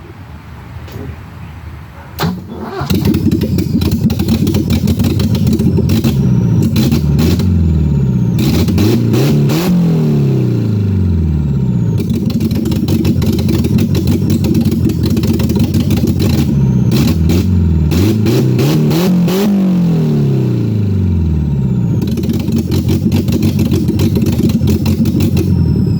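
BMW E30's M10 four-cylinder engine cranking on the starter, catching about two and a half seconds in, then running loud and revved up and down several times. The owner says it misfires at idle and suspects a bad distributor cap or jumped timing.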